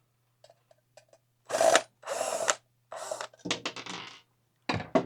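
Cordless drill running in about five short bursts, unscrewing the bolts on a ceiling fan's motor housing, with rattling clicks in the later bursts.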